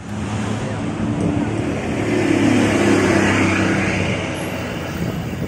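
Provincial bus with a locally built body driving past on a street, its engine running at a steady pitch. It is loudest about halfway through, then fades as the bus pulls away.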